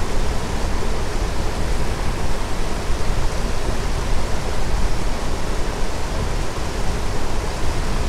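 Small waterfall cascading down bare granite into a creek pool: a steady, even rush of water.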